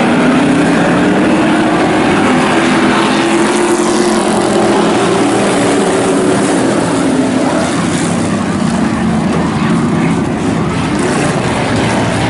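A pack of pure stock dirt-track race cars running flat out around the oval, a loud blend of several engines whose pitch rises and falls through the turns and straights.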